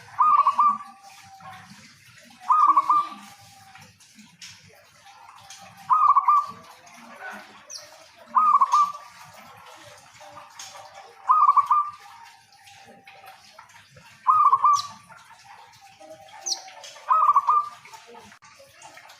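A zebra dove (perkutut) in full song, cooing. Its short, rapid trilled coo phrases repeat steadily every two to three seconds, seven times.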